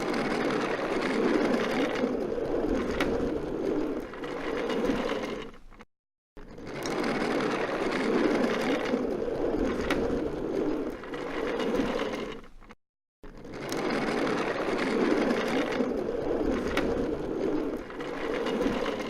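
A rolling cart, its wheels rumbling and rattling over the floor, heard as three near-identical runs of about six seconds each with short breaks between them.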